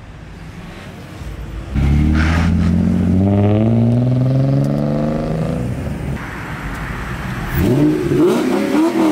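A car engine pulling hard as the car accelerates away, its pitch climbing steadily for about four seconds. Near the end a Ford Mustang Shelby GT500's supercharged V8 revs in several quick blips.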